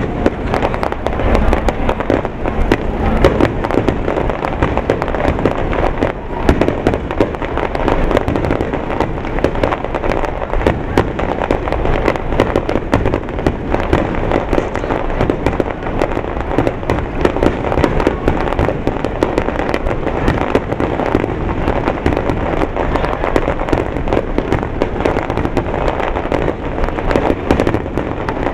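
Fireworks finale barrage: aerial shells bursting in rapid, unbroken succession, a dense, loud stream of bangs and pops with no pause.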